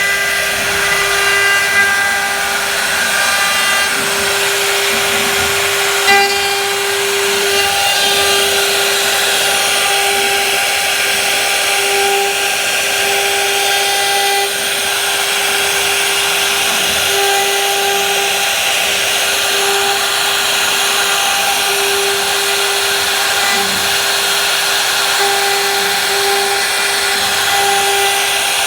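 Woodworking power tool running steadily and cutting wood, with a constant whine over dense cutting noise.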